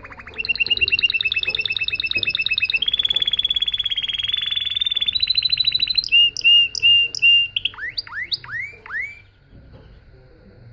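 Domestic canary singing one long phrase: fast trills and rolling runs, then a few slower clear notes and sweeping whistles that dip and rise in pitch. The song stops about nine seconds in.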